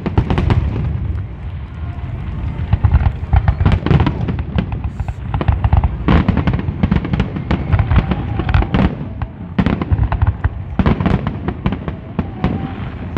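Aerial fireworks shells bursting in rapid succession: a dense barrage of booms and crackles, several reports a second throughout.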